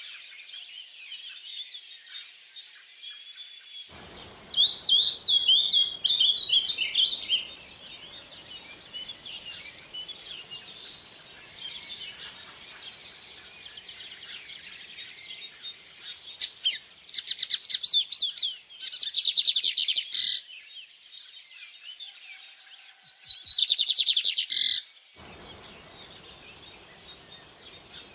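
Songbirds singing: quiet continuous twittering, broken by three loud bouts of chirps and fast trills, a few seconds in, past the middle and near the end. A faint steady rush of stream water lies beneath.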